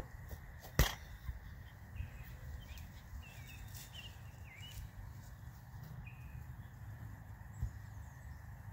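A soccer ball kicked once, a single sharp thud about a second in. Small bird chirps come a few times near the middle, over a steady low rumble.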